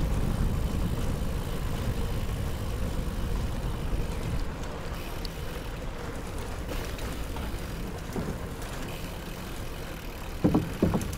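Low steady rumble of a bicycle being ridden over a wooden-plank footbridge, with wind on the microphone and tyres rolling on the boards. A couple of brief louder sounds come near the end.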